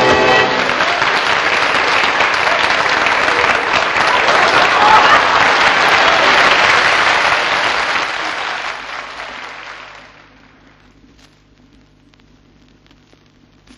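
Live audience applauding as a song ends, the applause fading out about eight to ten seconds in. Afterwards only a faint low hum with a few scattered clicks remains.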